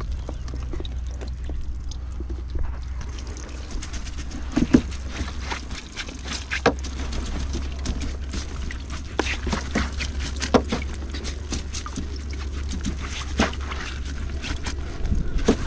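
Water trickling and dripping from a freshly lifted whitebait net while a hand pats and rubs the wet mesh to work the whitebait down into a bucket, with scattered sharp taps and clicks from the handling. A steady low wind rumble runs underneath.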